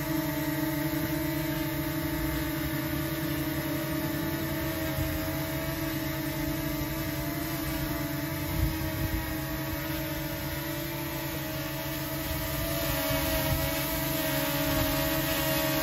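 Small quadcopter drone hovering close by: its propellers make a steady buzzing hum of several tones. The pitch shifts slightly after the middle, and the hum grows louder near the end.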